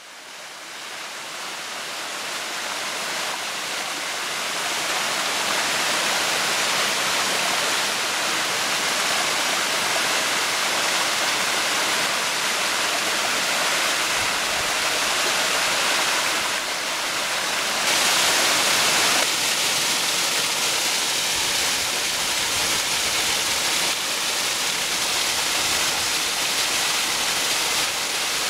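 Small waterfall cascading over rock ledges: a steady rushing and splashing of water. It fades in over the first few seconds and turns brighter and hissier about eighteen seconds in.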